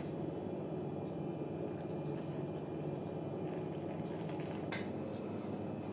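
Boiling water poured in a thin stream from a kettle into a small glass bowl of raisins, a steady trickle. There is a light click about five seconds in.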